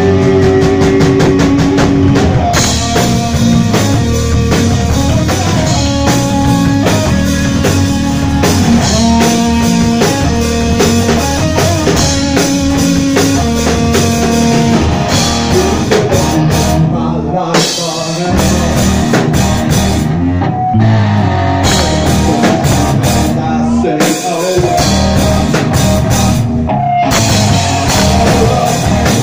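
Live rock band playing loudly: distorted electric guitar, bass guitar and a full drum kit, with a few short breaks in the second half where the band's sound thins.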